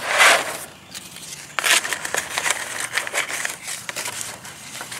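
Cardboard box and paper instructions rustling and scraping as a folded steel wire cooking basket is packed back into its box, with small clicks and crackles throughout. The loudest rustle comes at the very start, with another about one and a half seconds in.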